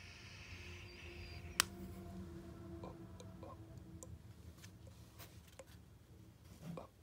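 A drag on a cartridge vape pen: a faint hiss of air drawn through the cartridge that stops with a sharp click about one and a half seconds in. After it come a faint low hum and a few small ticks while the vapor is breathed out.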